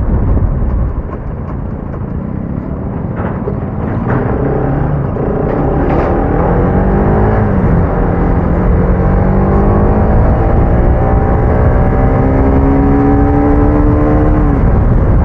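Motorcycle engine accelerating, its pitch rising steadily and dropping twice at upshifts, over heavy wind buffeting on the microphone that covers the engine for the first few seconds.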